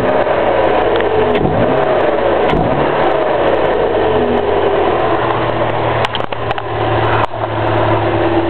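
Ford Fiesta Zetec Rocam four-cylinder engine breathing through an open conical sport air filter, being revved so that its note rises and falls several times, then holding a steady note near the end. A few sharp clicks come about six seconds in.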